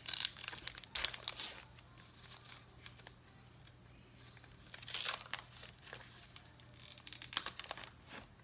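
A 2019 Topps Gypsy Queen baseball card pack being torn open, its wrapper crinkling in several short bursts: about the first second, again near five seconds and around seven seconds.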